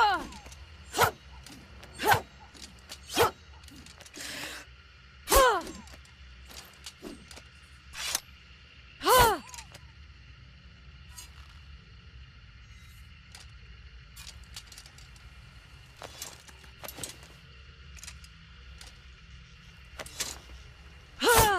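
Katana sword sound effects: a series of sharp metallic strikes, some ringing on with a tone that drops in pitch, and a swish about four seconds in.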